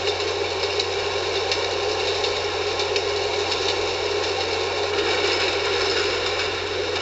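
Subway train running through a tunnel: a steady, loud rattling din of wheels on rails, with a few faint clicks.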